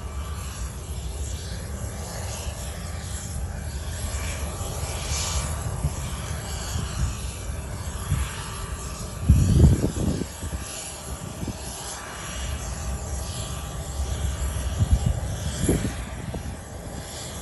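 Jet airliner's engines rumbling steadily at takeoff power, with louder low swells about nine seconds in and again near the end.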